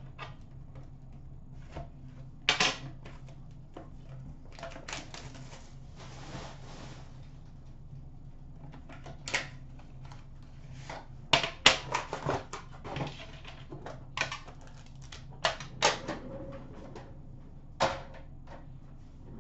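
A 14-15 Upper Deck Premier hockey card box being handled and opened by hand: irregular sharp clicks and taps of cardboard and packaging, a spell of rustling about six seconds in, and a cluster of louder taps about eleven to thirteen seconds in. A steady low hum runs underneath.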